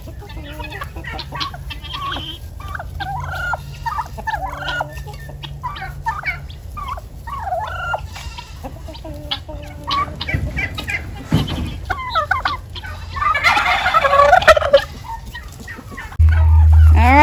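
Domestic turkeys and chickens calling and clucking by a pen, with a loud rattling turkey gobble about three-quarters of the way through, the loudest sound.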